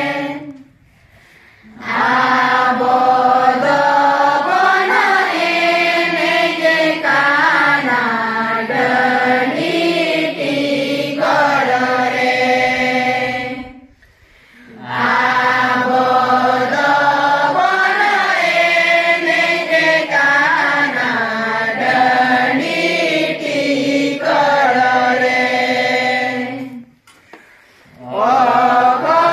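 A group of young women singing a song together in unison, in long phrases with short breaks for breath between them.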